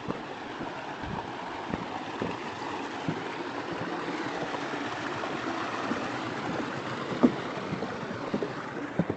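Rushing water, a steady hiss that swells toward the middle, with a few sharp knocks scattered through it, the loudest about seven seconds in.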